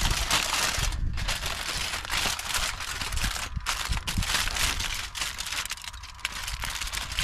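Aluminium foil crinkling as a fish parcel of foil and banana leaf is rolled up and pressed flat by hand. It is a continuous run of small crackles with two short pauses, about a second in and at three and a half seconds.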